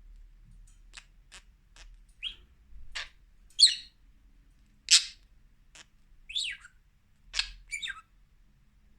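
Tame budgerigar giving a scattered series of short, sharp chirps, about a dozen, some falling in pitch, sped up by double-speed playback.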